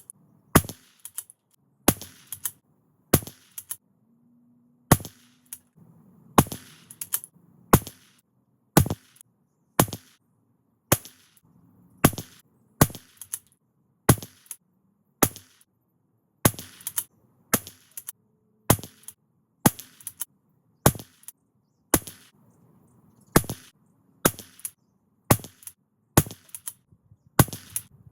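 Rimfire .22 LR shots from a CZ 457 bolt-action rifle, fired about once a second. Each sharp crack is followed by a fainter second report.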